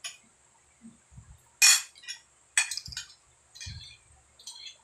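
Metal fork clinking and scraping against a glass plate of food, about four sharp clinks, the loudest about one and a half seconds in.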